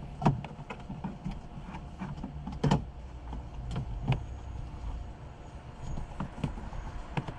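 Irregular plastic clicks and knocks as a fuel pump and sending unit assembly is pushed down into the fuel tank opening, with two louder knocks, one just after the start and one under a third of the way in, over a low steady rumble.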